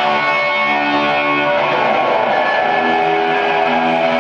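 Live rock electric guitar, a single-cutaway Les Paul-style guitar through Marshall amplifiers, strummed chords left ringing out loud and sustained. It moves to a new held chord about three seconds in.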